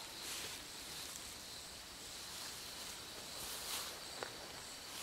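Night-time woodland ambience: a steady high insect drone, with a couple of soft rustles in leaf litter and one small click about four seconds in.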